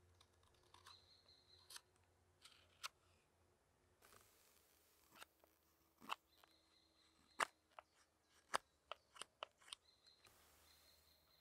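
Carving knife slicing shavings from a wooden spoon blank: a string of short, crisp cuts at an uneven pace, coming more often in the second half.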